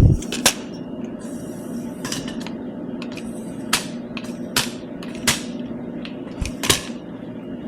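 About half a dozen sharp plastic-and-metal clicks and knocks at irregular intervals: the trigger-release legs of a Primos Trigger Stick shooting-stick tripod being dropped and adjusted.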